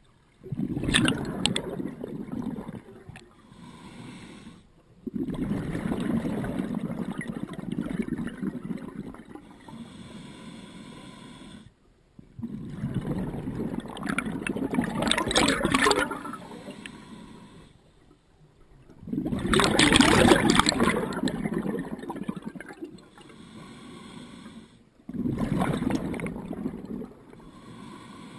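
Scuba diver breathing through a regulator underwater: a quieter hiss on each inhale, then a long gush of exhaled bubbles, repeating about every six seconds, five breaths in all.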